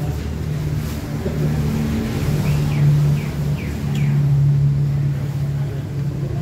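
A motor engine running with a steady low hum that shifts slightly in pitch, and four quick falling bird chirps about halfway through.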